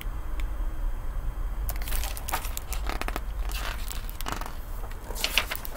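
Pages of a hardcover picture book being handled and turned: irregular paper rustling and crinkling that starts about two seconds in.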